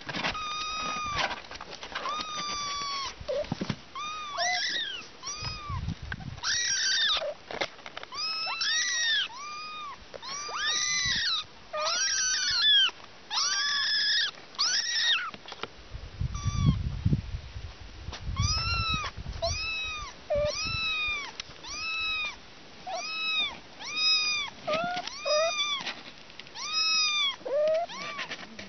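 Kittens meowing repeatedly: short, high-pitched, arching mews about one a second. Several call over one another for a stretch in the first half, and a low rumble comes partway through.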